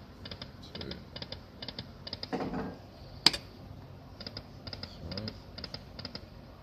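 Poker machine clicking: quick light ticks in small groups of two or three, with one sharp louder click about halfway through.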